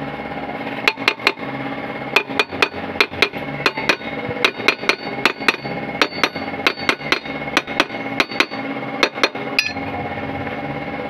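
Hammer blows on the metal of a Bajaj RE three-wheeler's rear brake drum and hub. The sharp, ringing strikes come in quick runs of two or three, about three a second, starting about a second in.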